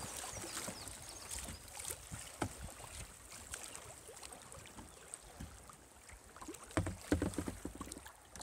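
River water rippling and lapping around a kayak's hull on a fast-flowing current, with scattered small splashes and knocks. About seven seconds in, a short cluster of louder knocks and splashes stands out.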